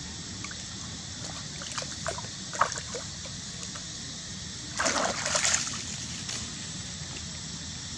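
Steady trickling of shallow stream water with scattered splashes from macaques wrestling in it: a sharp splash about two and a half seconds in and a louder run of splashing about five seconds in.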